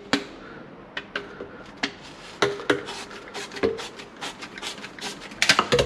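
Handheld pipe cutter being worked around a black ABS drain pipe to cut it to length: irregular clicks and scraping, with a quicker run of clicks near the end.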